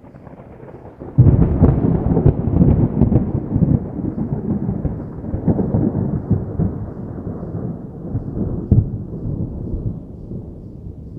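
Thunder: a faint low rumble breaks into a loud clap about a second in, then rolls on with crackles and one sharp crack near the end, slowly dying away.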